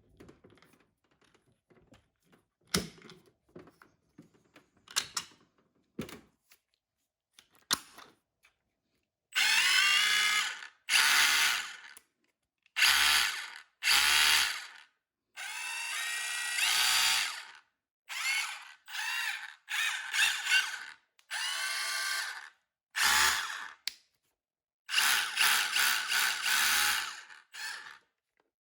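A few clicks and knocks of the tool being handled. Then the Milwaukee M18 FUEL brushless cordless SDS-plus rotary hammer drill is run in about ten short bursts of one to two seconds each, its motor whining up each time the trigger is pulled.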